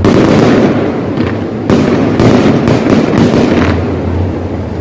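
Fireworks going off: a dense run of bangs and continuous crackling, with sharp new bursts landing every second or so.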